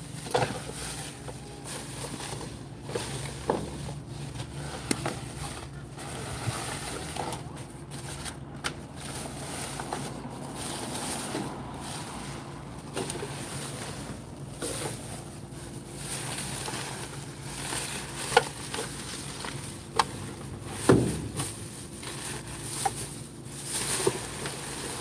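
Plastic bags and crushed plastic water-bottle packaging rustling and crinkling as hands rummage through dumpster trash, with scattered sharp clicks and one louder thump about four seconds before the end.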